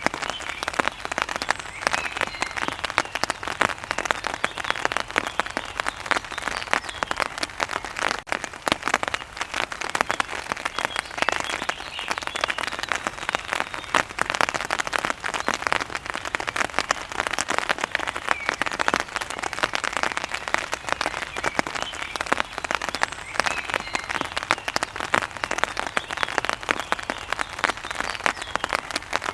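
Steady rain falling, with a dense, even spread of close drop hits and no let-up.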